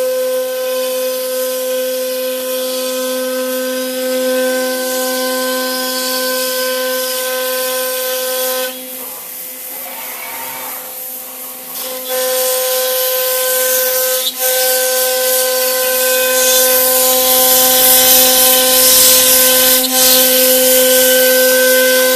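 C.R. Onsrud CNC router cutting plywood: a steady high whine from the spindle over a loud hiss from the bit and dust extraction. The whine drops out for about three seconds near the middle, then comes back and grows louder toward the end.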